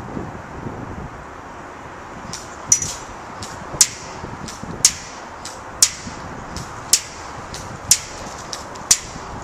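Airsoft BBs striking a metal gas tank in sharp, ringing ticks about once a second, with fainter clicks between, as a SIG 552 Commando airsoft gun is fired semi-automatic. The hits start a couple of seconds in.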